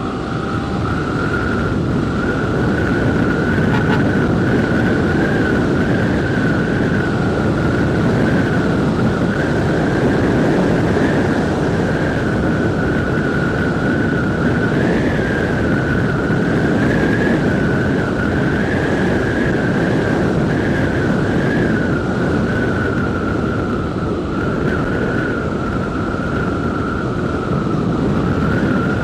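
Wind rush and motorcycle riding noise picked up by a helmet-mounted external microphone with the visor open, steady throughout. A constant high whine sits over the rush, wavering slightly in pitch.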